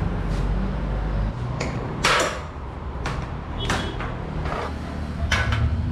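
Sharp metal clinks and knocks, about seven spread over a few seconds with the loudest clatter about two seconds in, a couple ringing briefly: a wrench working the oil drain bolt under a Yamaha NMAX scooter's engine for an oil change. A steady low hum runs underneath.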